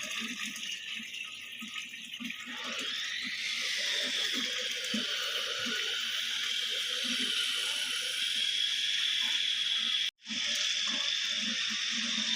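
Water pouring steadily from a garden waterfall, a continuous splashing rush that grows louder about three seconds in and cuts out briefly about ten seconds in.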